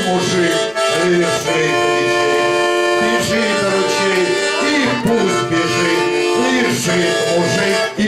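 Button accordion (bayan) playing an instrumental passage of a chanson song without vocals: loud held chords that change every second or so.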